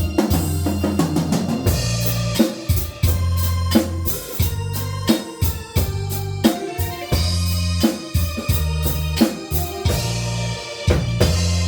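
Instrumental band music: a keyboard playing organ-like chords over a steady bass line, with a drum kit keeping the beat. The cymbals grow brighter near the end.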